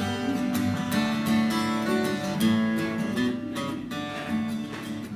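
Acoustic guitar strummed in a steady rhythm with no voice: an instrumental passage of a country-folk song.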